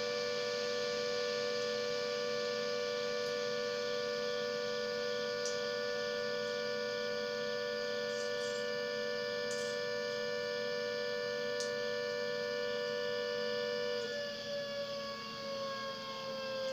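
Klaxon CS8 siren sounding a steady two-note chord, the all-clear signal, held level for about fourteen seconds. It then starts to wind down, its pitch falling slowly.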